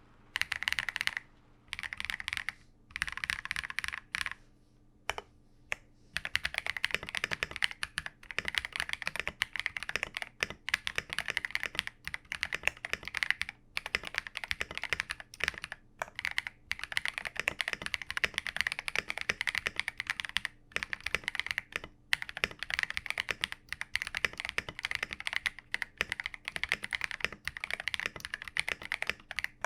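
Typing on a KiiBOOM Phantom 81 V2 gasket-mounted mechanical keyboard with transparent switches and keycaps: rapid key clicks, in short runs with pauses at first, then near-continuous fast typing.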